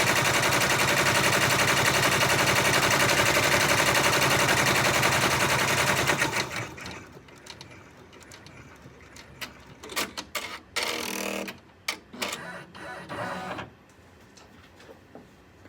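Six-needle embroidery machine stitching at high speed with a fast, even rattle, stopping about six seconds in as the design finishes. It is followed by scattered mechanical clicks and a short whir.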